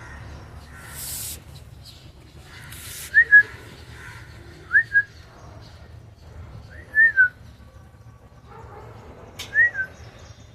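Lutino cockatiel whistling: four short two-note whistles, each a quick rising note then a level or falling one, a couple of seconds apart. A brief hiss sounds about a second in and again about three seconds in.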